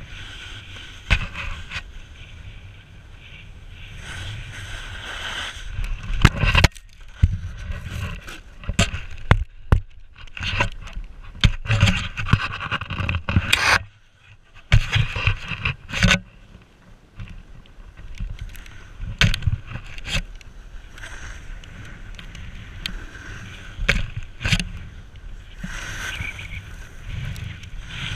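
Snowboard sliding and carving on packed snow: a continuous scraping rush with wind on the microphone, broken by many sharp knocks and clatters. The noise briefly drops away about halfway through.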